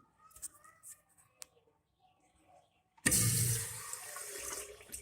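Crane Plumbing urinal being flushed: a sudden rush of water about three seconds in, loudest at the start and tapering off, after a few faint clicks.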